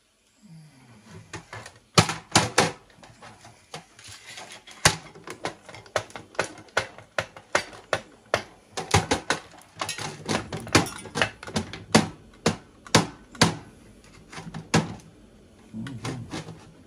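Irregular clicks and sharp knocks of a sewing machine's casing and loose internal parts being handled, shifted and knocked against a workbench during disassembly, some knocks much louder than others.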